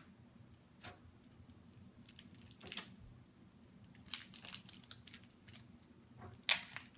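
Sheets of paper being handled: scattered rustles and crinkles, a cluster about four seconds in and the loudest one near the end.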